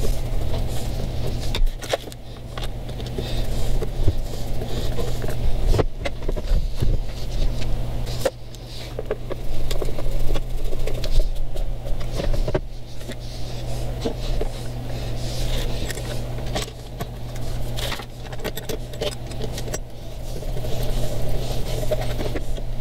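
Hand screwdriver turning the cover screws on a Yamaha 704 binnacle control box, then the box being shifted and tilted: scattered clicks, scrapes and knocks of metal and plastic over a steady low hum.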